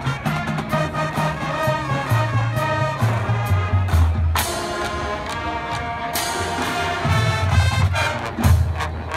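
Large marching band playing: brass chords over a stepping low-brass bass line, with drum hits and a crash about four and a half seconds in.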